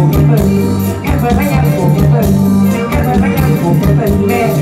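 Live band playing an Isan luk thung song, with a steady drum beat and bass line under the melody.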